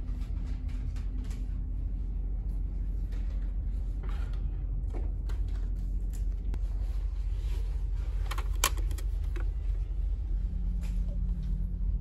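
Steady low machinery hum of a ferry heard inside a passenger cabin, with scattered light clicks and knocks of handling, the loudest a little after eight seconds in.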